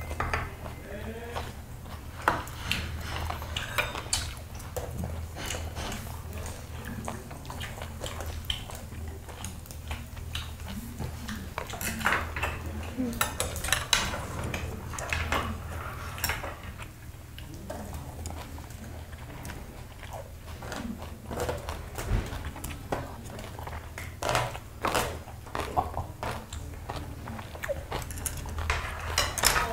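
Eating at a table: chopsticks and a metal spoon clicking against dishes and bowls in scattered sharp clicks, over a steady low hum.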